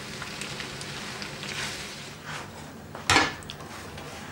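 Pasta being stirred and tossed in a frying pan with a utensil: soft, steady stirring noise, with a single sharp knock of cookware about three seconds in.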